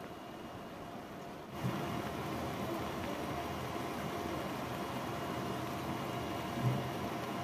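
Steady rushing noise of a gas stove with a pan of noodles simmering on it, getting louder about a second and a half in, with a single dull knock near the end.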